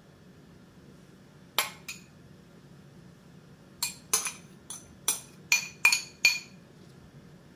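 Metal spoon clinking and scraping against a white ceramic bowl as ground-meat filling is scraped out. There are two clinks about one and a half seconds in, then a quick run of about eight ringing clinks near the middle.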